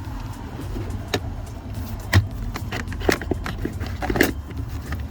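A plastic interior trim cover on a 2007 Acura MDX being pried loose by hand, giving a few sharp clicks and knocks as its clips let go, about once a second, over a steady low hum.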